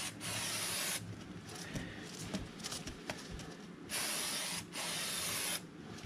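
Aerosol chain lube spraying through a straw nozzle onto a motorcycle's O-ring drive chain in short hissing bursts: one ending about a second in, then two more close together around four to five and a half seconds in. Faint clicks in between.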